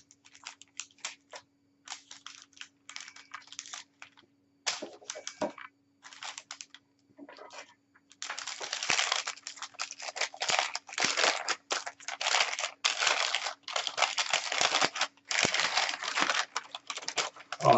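Hand-wrapped packaging being pulled off a box: crinkling and tearing, intermittent at first and then continuous and louder for the last half or so, over a faint steady hum.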